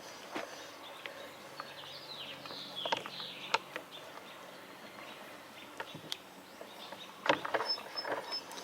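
Sparse metal clicks and taps from a chain rivet spinner setting a rivet in a chainsaw chain's master link, with birds chirping in the background.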